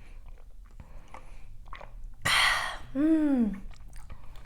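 Soft mouth and chewing sounds, then about two seconds in a loud breathy burst of about half a second, followed by a short wordless vocal sound like a hum that rises and then falls in pitch.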